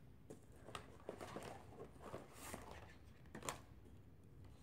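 Faint rustling and light taps of product boxes and packets being handled and set down, with one louder knock about three and a half seconds in.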